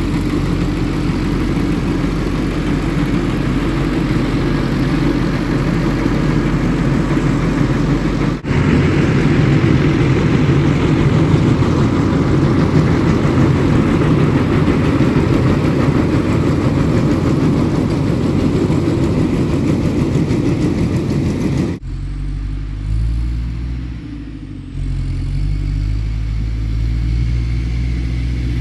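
Ursus 1014 tractor's diesel engine running steadily as it pulls a round baler through hay. The sound cuts abruptly twice, about a third of the way in and again about three quarters in; after the second cut the engine sounds more distant and thinner.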